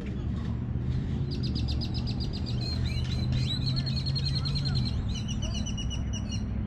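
Small birds singing: a fast trill of high notes starting about a second in, then whistled notes, over a steady low hum.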